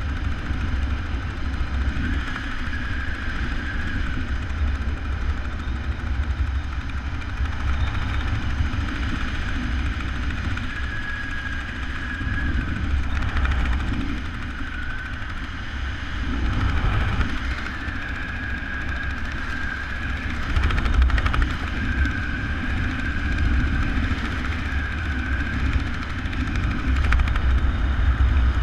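Wind rushing over a helmet-mounted camera's microphone during a parachute descent under an open canopy: a steady low rumble, with a faint high whistle that comes and goes.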